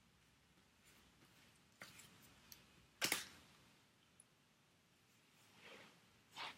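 Near silence with a few small clicks and soft rustles from craft materials being handled, the sharpest click about three seconds in.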